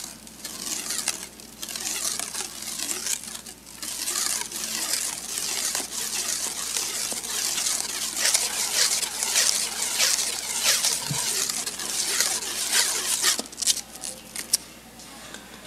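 Plastic stretch wrap being pulled off its roll and wound tightly around a horse's hoof, crinkling and crackling in repeated swells of a second or two. A few sharp clicks near the end.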